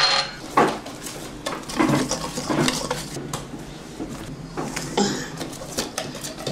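Wire whisk stirring dry flour mix in a stainless steel bowl: irregular clinks and taps of metal on metal.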